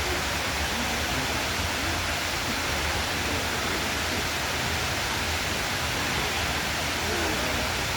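Artificial waterfall cascading, a steady, even rush of falling water.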